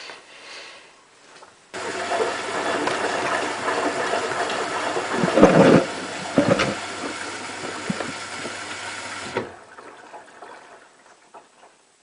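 Hotpoint Ultima WT960 washing machine running water through its empty drum during the rinse: a rushing hiss over a steady low electrical hum that switches on abruptly about two seconds in and cuts off abruptly about seven seconds later, with a couple of louder surges midway.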